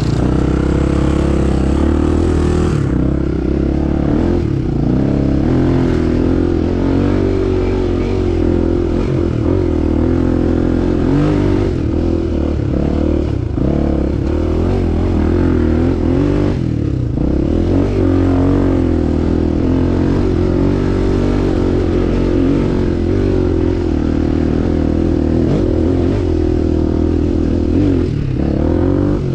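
Enduro motorcycle engine running under changing throttle while riding off-road, its pitch rising and falling again and again as it revs up and eases off.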